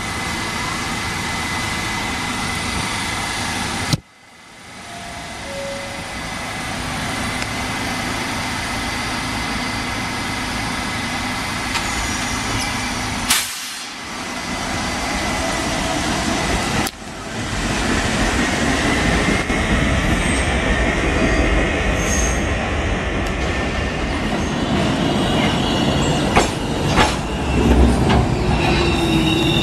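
New York City subway train running on the rails: a steady rumble with thin, high wheel squeal, and a few sharp clicks of wheels over rail joints near the end. The sound cuts off abruptly and restarts three times, about 4, 13 and 17 seconds in.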